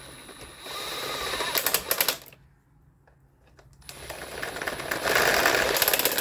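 Cordless power driver running screws into the ignition coil tower, the screws not started by hand. It runs in two bursts of rapid clicking, about a second and a half and then about two and a half seconds, each getting louder as it goes.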